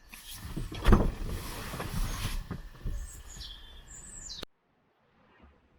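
A bird chirping over a rumbling, noisy background with a thump about a second in; it all cuts off suddenly about four and a half seconds in.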